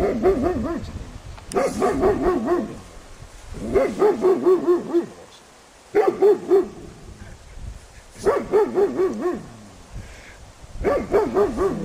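Dog barking in quick volleys of four to six barks, about one volley every two seconds. The barking is aimed at the white-clad 'ghost' figures of a temperament test, a defensive or threat reaction to them.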